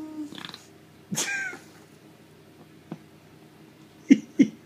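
A baby's high-pitched squeal, rising and falling, about a second in. Near the end come three or four short, sputtering fart noises made by the baby, each a quick low burst.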